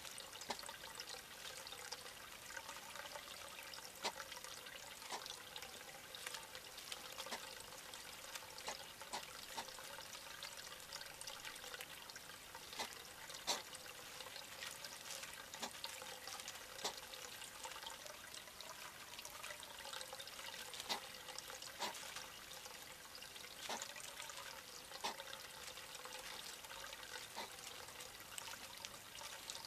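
Steady trickling of running water, with irregular sharp clicks and crunches of hedgehogs chewing dry kibble.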